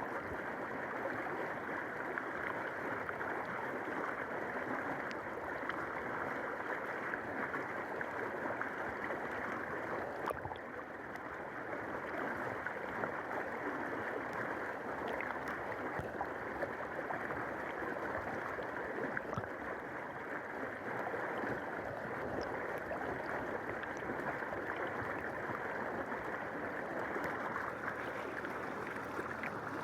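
River water flowing in a steady, even rush, dipping briefly about ten seconds in.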